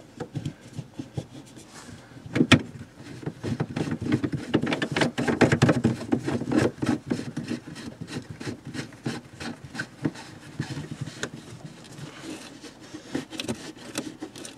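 Plastic drain pipe being handled and fitted: a black plastic shower trap pushed onto the drain tailpiece and twisted tight by hand, with scraping and rubbing and many small knocks. A sharper knock comes about two and a half seconds in.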